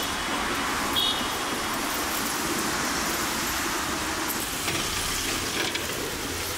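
Steady outdoor street noise: an even hiss of road traffic.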